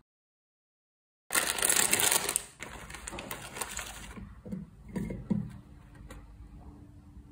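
Plastic instant-ramen wrapper torn open and crinkled, starting about a second in and loud and crackly for about a second, then softer rustling. A few soft thumps follow as the dry noodle block and sauce packets are set on a plate.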